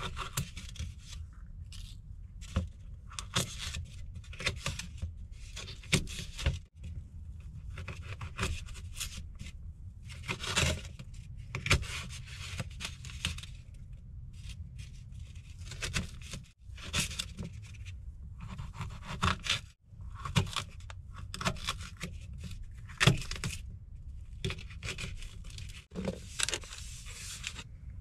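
Chef's knife slicing mini sweet peppers on a white cutting board: irregular cutting and scraping strokes, with a few sharper knocks of the blade on the board.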